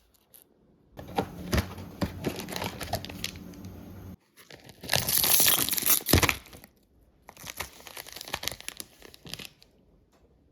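Packaging being handled, crinkling and crackling in three spells, with a short pause after each; the middle spell is the loudest, with a sharp crack near its end.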